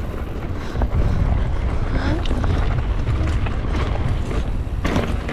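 Wind buffeting the microphone of a mountain bike rider's camera, a steady low rumble, with a few brief clatters from the bike over the trail.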